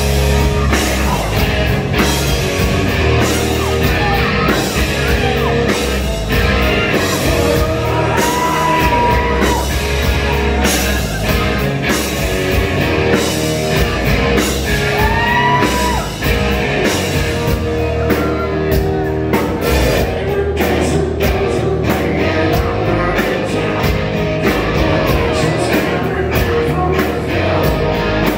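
Live hard rock band playing loudly: distorted electric guitars over drums and bass, with a singer's voice over the band.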